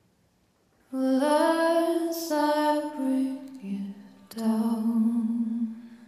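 Female vocalist singing slow, sustained notes of a soft ballad, coming in about a second in after a hush; a second long held note starts just past four seconds and fades away near the end.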